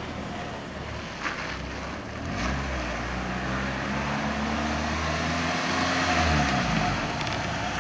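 1994 Jeep Wrangler's engine pulling away and driving up close, its pitch rising over a second or so, holding, then dropping off near the end, over steady wind and road noise.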